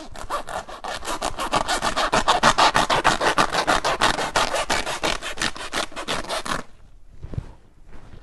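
A blade sawing back and forth through the top of a woven plastic sack of industrial salt, in quick, even strokes of about seven a second that stop about six and a half seconds in.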